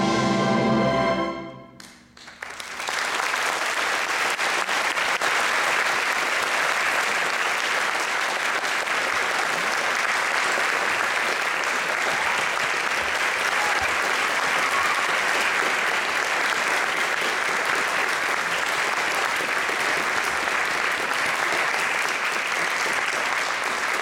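An orchestra holds a final chord that cuts off about a second and a half in, and after a brief pause the audience breaks into steady applause.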